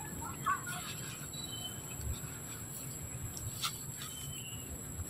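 Forest background with a short call about half a second in, a few thin high bird chirps, and one sharp click about three and a half seconds in, over a steady high whine.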